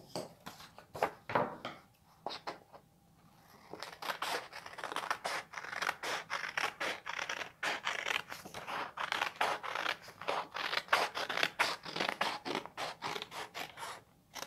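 Scissors cutting through a folded sheet of paper along a drawn half-heart line. A few scattered clicks and paper rustles come first, then about four seconds in a rapid, continuous run of short snips that lasts until just before the end.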